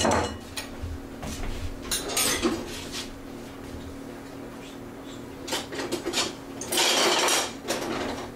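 Kitchen clatter: a ceramic bowl is set down on the countertop, followed by scattered knocks and clinks of dishes and utensils. About seven seconds in comes a longer rattle of utensils that lasts under a second.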